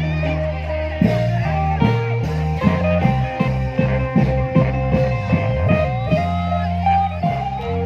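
Klong yao long-drum band music: a steady, lively drum beat under low bass notes and a melody that bends in pitch.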